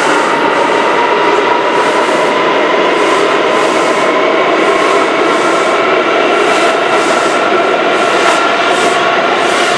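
R179 subway train running alongside the platform as it pulls out: a steady rush of wheel and rail noise with a whine from its propulsion motors and light clacks of wheels over rail joints.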